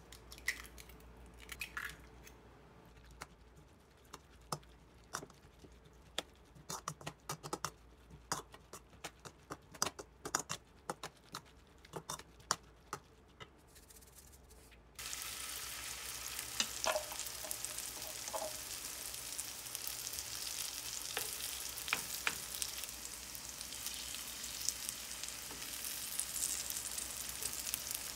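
A metal spoon stirring and scraping a vegetable mixture in a stainless steel bowl, in scattered clinks and clicks. About halfway through this cuts abruptly to a steady sizzle of small pancakes frying in oil in a nonstick pan.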